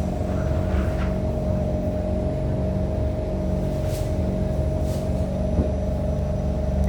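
KHI C151 MRT train pulling away slowly, its traction motors giving a steady whine that stays at one pitch over a heavy low rumble, with a few brief clicks and a knock. This is the weird motor sound from car 1012 while it accelerates sluggishly on a wet track.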